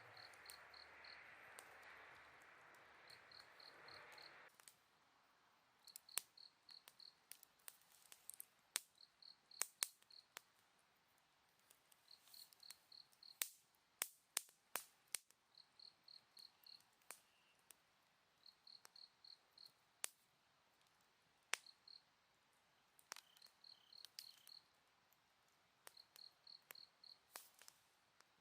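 Campfire crackling with scattered sharp pops, over an autumn insect chirping in short runs of four or five quick pulses about every two seconds. A steady hiss during the first four seconds stops suddenly.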